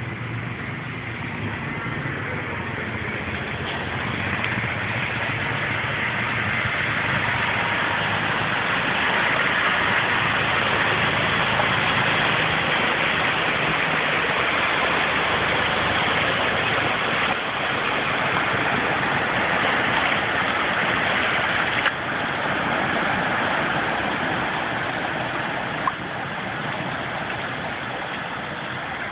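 Steady rush of moving floodwater, swelling louder through the middle and easing off near the end, with two short clicks in the last third.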